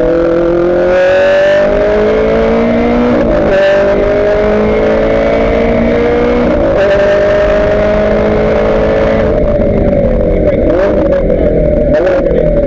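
Ferrari F430 GT race car's V8 engine heard from inside the cockpit, accelerating hard with pitch rising and dropping at two upshifts about three and six seconds in. About nine seconds in it lifts off for braking, and the pitch dips and jumps through downshifts with scattered crackles.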